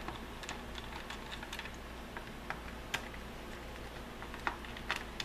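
Light, irregular clicks and taps of a small hobby screwdriver working screws out of a Syma X8C quadcopter's plastic shell, with the shell being handled. The clicks come closer together near the end.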